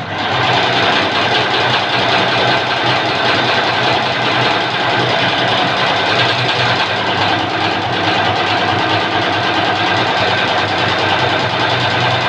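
Single-head computerized embroidery machine running steadily, stitching a design into fabric with a fast, even run of needle strokes.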